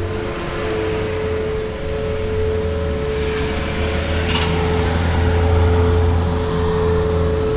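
Outdoor tornado warning siren sounding a steady tone during its monthly test. A vehicle passes close by, its low rumble swelling over the middle of the stretch.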